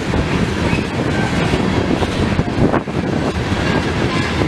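Coal train's freight cars rolling past close by: a steady, loud rumble and rattle of steel wheels on the rails.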